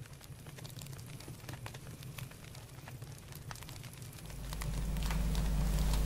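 Wood fire crackling in a stove's open firebox, with many small sharp snaps. About four seconds in, a low steady hum comes up beneath it.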